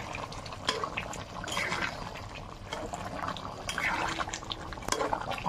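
Chicken curry gravy bubbling at a simmer in a metal wok, with a spatula stirring through it and scattered short clicks and scrapes against the pan.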